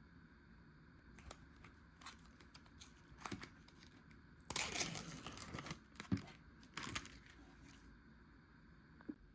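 Plastic food packaging being handled, torn open and crinkled: scattered small clicks and rustles, with a burst of tearing and crinkling about halfway through, then a few more light clicks.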